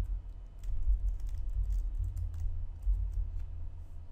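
Computer keyboard typing: an uneven run of key clicks, over dull low thumps.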